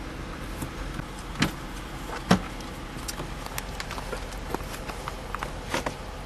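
Scattered plastic clicks and knocks from a Lincoln MKZ's glove box and dash trim being handled for removal. Two louder knocks come about a second and a half and two and a half seconds in, over a low steady hum.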